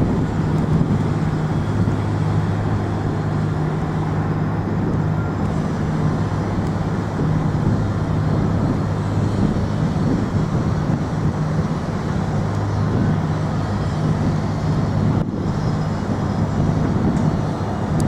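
Steady city street noise: traffic with a constant low engine hum running underneath.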